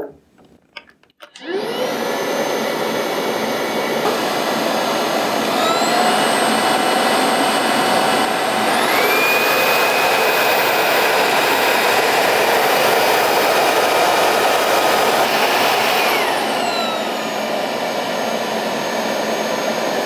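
Viomi A9 cordless handheld vacuum cleaner motor starting up with a whine after a few faint clicks. It steps up in pitch and loudness twice as it is switched from eco to medium to turbo suction, then winds back down to eco mode near the end.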